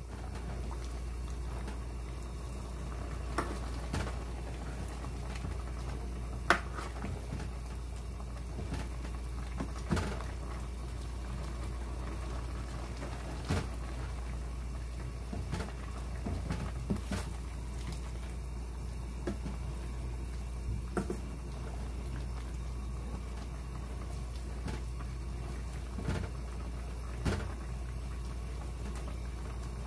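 A plastic ladle stirring through a stainless steel pot of liquid chicken stew, with irregular light knocks and scrapes of the ladle against the pot, the loudest about six and a half seconds in. A steady low hum runs underneath.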